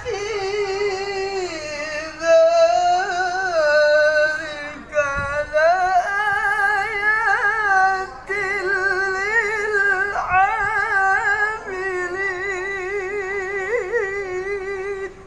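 Qur'an recitation (tilawah) chanted in a high, melismatic voice: long held notes with wavering trills and ornaments, in several phrases broken by brief breath pauses.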